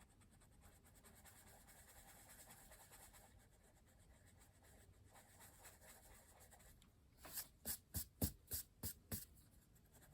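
Faint pencil-on-paper rubbing, then from about seven seconds in a Dixon Ticonderoga pencil's eraser scrubbing quickly back and forth across paper, about three to four strokes a second.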